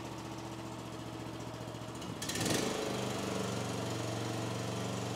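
Newly installed small Loncin engine of a mini skid steer running just after starting. About two seconds in there is a short burst of noise, and after it the engine runs a little louder and steadier.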